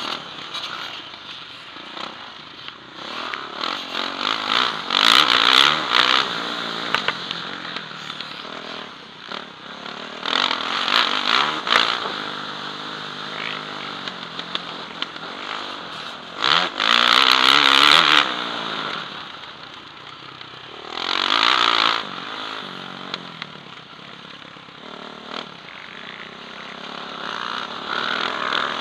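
Motocross bike engine heard from the rider's helmet camera, revving hard and easing off over and over as the rider accelerates and shuts off around the track, its pitch climbing and falling. The loudest full-throttle surges come about every five seconds.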